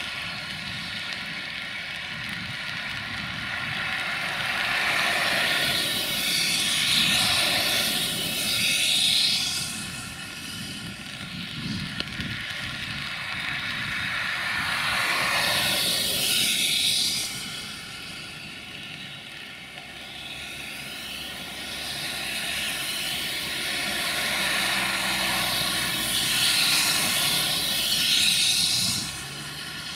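Multirotor drone's propellers whirring steadily, with a rushing noise that swells and fades three times.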